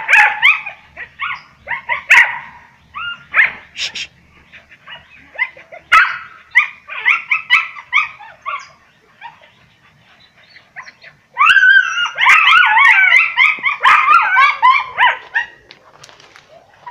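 A pack of hunting dogs yelping and barking in short, high-pitched bursts. About eleven seconds in, after a brief lull, the calls become a dense overlapping chorus of yelps.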